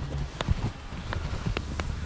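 Wind rumbling on the microphone, with about five sharp clicks and knocks from gloved hands handling the camera pole.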